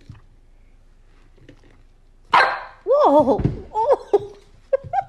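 A dog barking and whining: a sudden loud bark about two seconds in, then calls that waver up and down in pitch, and a few short calls near the end.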